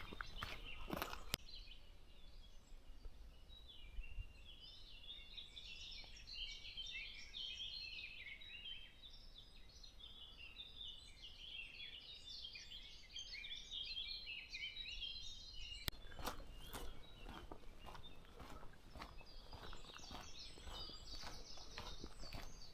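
Songbirds singing in a dense run of short chirps and trills, with a hiker's steady footsteps on a forest path in the first second or so and again from about two-thirds of the way through.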